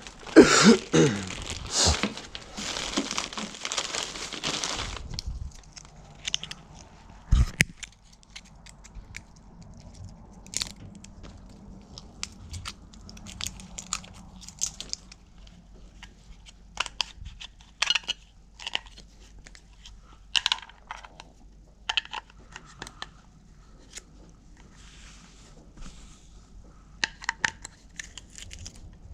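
Plastic packaging crinkling and tearing for the first few seconds as a remote control and its batteries are unwrapped, then a single knock followed by scattered small clicks and rattles of batteries being fitted and the remote handled.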